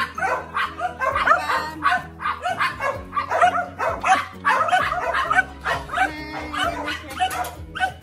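Dogs yipping and whining, many short high cries a second in a continuous stream, over background music with steady held notes.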